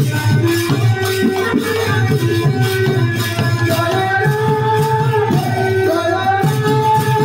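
Devotional kirtan music: hand-played khol barrel drums beating a steady rhythm with small hand cymbals jingling, and voices chanting over them.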